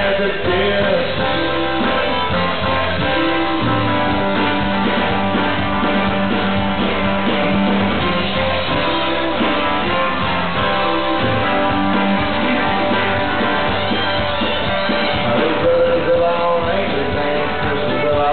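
Live red dirt country band playing an instrumental break: acoustic guitar strumming over drums, with a fiddle taking a solo.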